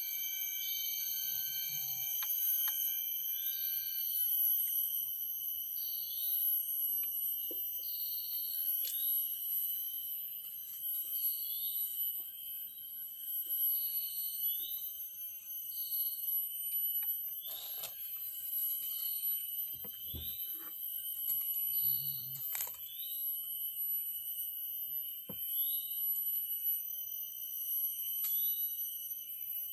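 Forest insects droning in several steady, piercing high tones, with a short falling high-pitched call repeated about once a second. A few brief knocks come in the second half.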